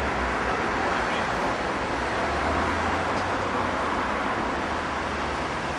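Steady city street traffic noise, a continuous hum of passing vehicles with a low rumble underneath.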